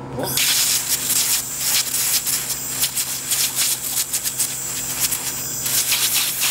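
Zumaq handheld laser welder firing on stainless steel: a hissing crackle full of rapid pops, starting about a third of a second in, over a steady low machine hum.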